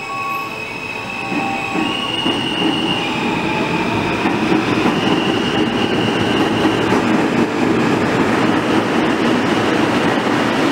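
New York subway train, an R160B, pulling out of the station: its running noise and wheel rumble build over the first couple of seconds, then stay loud and steady as it gathers speed past the platform.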